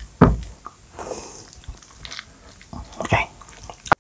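A fork twirling and mixing sticky, creamy carbonara spaghetti in a bowl: wet squishing with several knocks and scrapes of the fork against the bowl, the loudest a heavy thump just after the start. A sharp click comes just before the end, then the sound cuts off suddenly.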